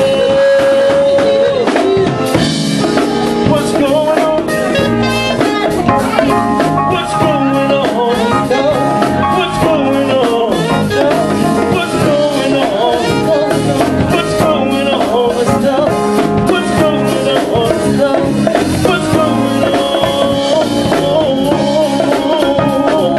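Live soul band playing with a drum kit, bass and keyboards, a wavering lead melody line over the groove.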